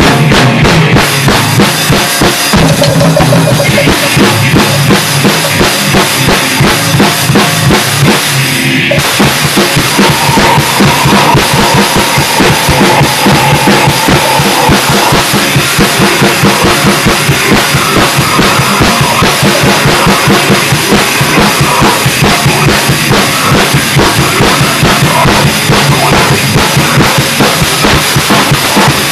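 Grindcore band track: a drum kit playing fast and dense, with bass drum and snare, under electric guitar.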